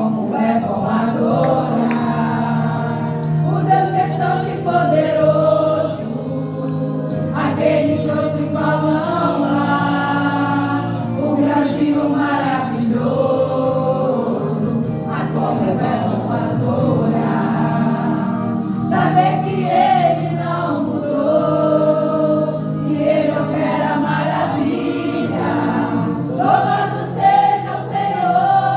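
Gospel choir singing a worship song over steady, sustained low instrumental accompaniment.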